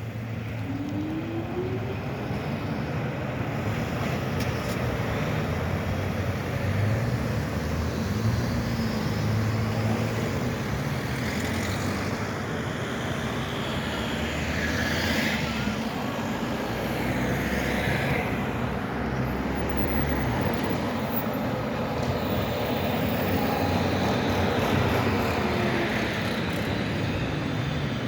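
Tram running along a city street: a steady rumble of wheels on rail, with the electric motors' whine rising near the start and falling near the end, as in speeding up and slowing down.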